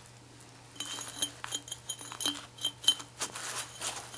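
A loose metal washer clinking against the rusty screw of an old blacksmith's vise as the screw is handled: a quick, irregular run of small metallic clinks that starts about a second in.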